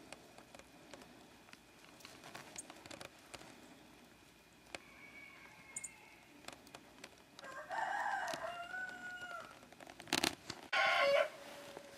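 Rooster crowing: one long call about halfway through, then a second, louder call near the end, with faint scattered clicks between.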